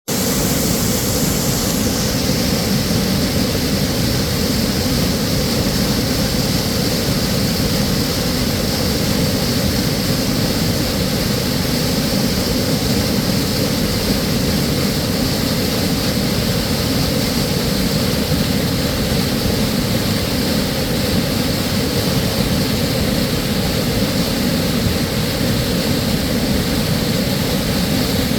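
Mountain creek cascade: falling water rushing in a steady, loud, unbroken roar.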